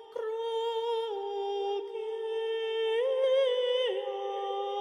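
Wordless vocal music, a sung or hummed sound holding long notes, steps up in pitch about three seconds in and back down about a second later.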